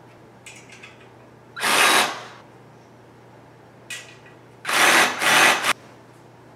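Cordless drill with a hex bit driving bolts into a metal bed-frame joint in short bursts: one about one and a half seconds in, then two more back to back near five seconds. Faint clicks of the metal parts come between the bursts.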